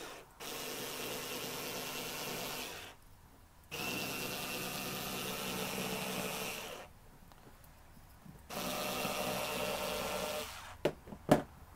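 Bosch IXO cordless screwdriver with its rotary cutter attachment running in three steady whirring bursts of two to three seconds each, cutting through knitted polyester fabric, with short pauses between. Two short clicks follow near the end.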